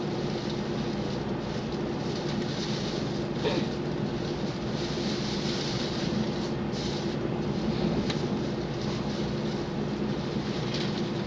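Taiwan Railway passenger train running, heard from inside the carriage: a steady rolling rumble with a low hum, and a few short clicks from the rails.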